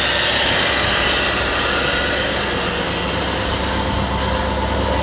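A 1970 Ford F350's 390 FE big-block V8 idling steadily, smooth and quiet like a sewing machine: a healthy-sounding idle.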